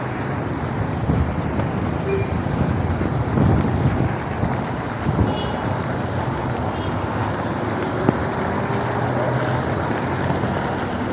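Rain and city traffic on a wet street: a steady wash of hiss from rain and car tyres on wet asphalt, with passing car engines underneath. A passing vehicle swells briefly about three seconds in.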